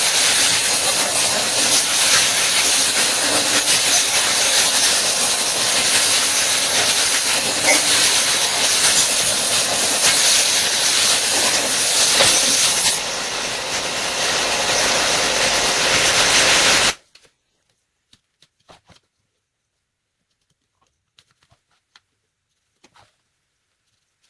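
A power tool working the elk antler and resin bowl blank, giving a loud, steady hissing rasp that eases slightly about two-thirds of the way through. It cuts off abruptly, leaving near silence with a few faint clicks.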